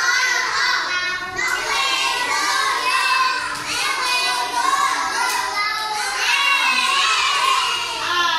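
A group of young children singing and chanting together, many voices overlapping without a break.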